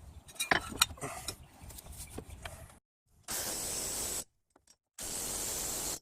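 Metal hand tools clinking and clicking against metal, then two steady hissing bursts of about a second each.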